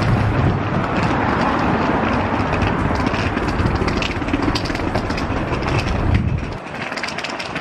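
City street traffic noise with a heavy low rumble from vehicles, which drops away abruptly about six and a half seconds in, leaving lighter street noise.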